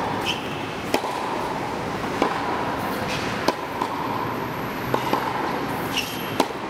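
Tennis balls struck by rackets and bouncing on a hard court during a baseline rally: about five sharp pops, roughly one every second and a half, over steady background noise.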